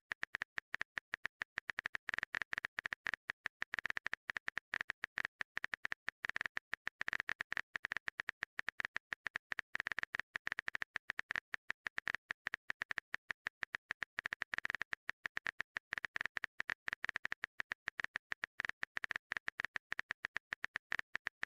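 Phone-keyboard typing sound effect: a rapid, uneven run of short clicks, several a second, while the next chat message is being typed.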